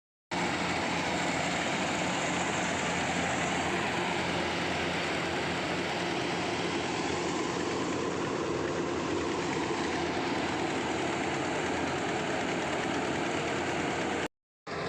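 Kubota combine harvester running steadily, a dense mechanical noise with a low engine hum underneath; it cuts out for a split second near the end.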